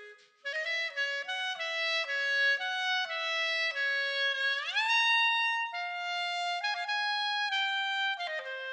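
Solo B♭ clarinet playing a quick, playful line of short notes. About halfway through it scoops smoothly up into a higher held note, then carries on with further notes.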